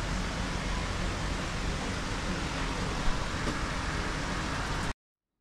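Steady outdoor street ambience: a constant rumble and hiss of traffic and market bustle, with one brief knock about three seconds in. It cuts off suddenly near the end.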